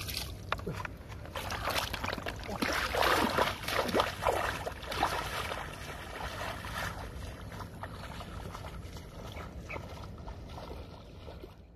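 Footsteps splashing and sloshing through shallow muddy water, an uneven run of wading strides that fades as the walker moves away.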